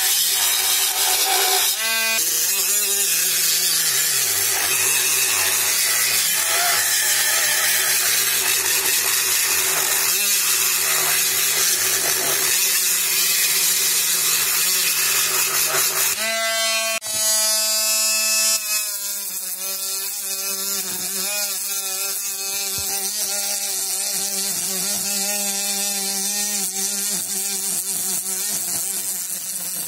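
Small USB-rechargeable rotary grinder with a sanding drum, its motor running with a steady whine under loud scratchy grinding as the drum sands the paint off an aluminium drink can. About halfway through, the grinding noise drops away and the motor's whine stands out clearly.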